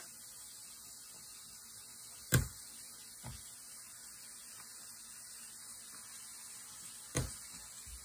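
Faint steady room hum, broken by a sharp knock a couple of seconds in, a softer one just after, and another sharp knock near the end, as a crawling baby bumps against the wooden floor and refrigerator door.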